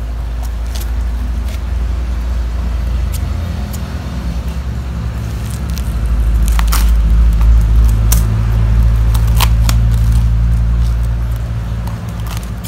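Black plastic parcel wrap and tape crinkling and crackling as it is cut open with scissors, with a few sharp snips and crackles. Under it runs a loud low rumble that swells for several seconds in the middle.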